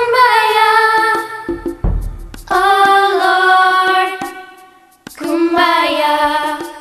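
Children's song: a voice singing a melody in long held notes, three phrases with short breaks between them.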